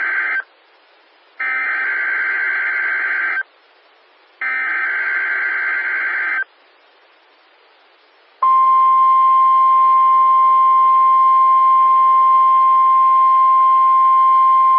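NOAA Weather Radio Required Weekly Test: the end of one burst of SAME header data and then two more full bursts, each about two seconds long with about a second of quiet between them. After a pause of about two seconds, the steady 1050 Hz warning alarm tone starts about eight seconds in and holds.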